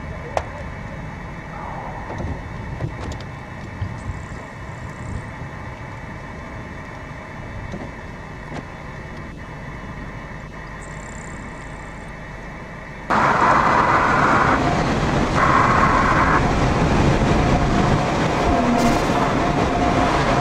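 Steady wind noise outdoors with a few light clicks. About 13 seconds in it switches suddenly to louder, steady road and engine noise inside a moving car, with two brief tones soon after the switch.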